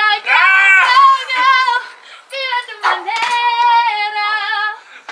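A high voice singing a melody in long held, wavering notes, with short breaks between phrases.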